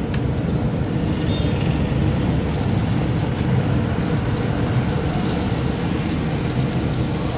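Red-marinated meat skewers deep-frying in a wok of hot oil, with the oil sizzling and bubbling over a steady low rumble. There is a brief click just after the start, as a skewer goes in.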